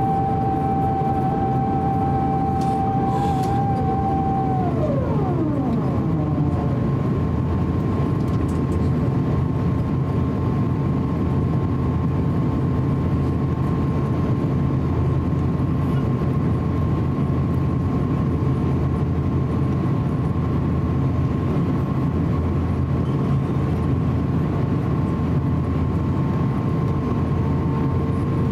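Airbus A350-900 cabin noise in flight: the steady roar of air and engines heard from inside the cabin. About five seconds in, a whine drops sharply in pitch and fades away.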